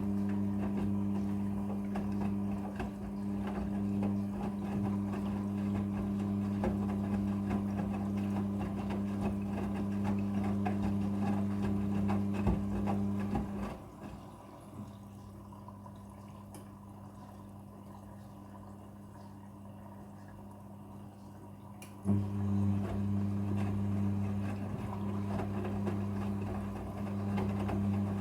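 Front-loading washing machine running a wash cycle: a steady hum over water noise, cutting out about halfway through and starting again some eight seconds later.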